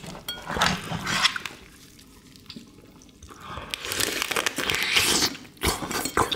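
Wet slurping and sucking as soy-sauce-marinated raw crab (ganjang gejang) is sucked and bitten out of its shell, loudest in a long slurp past the middle, with a couple of sharp shell cracks near the end.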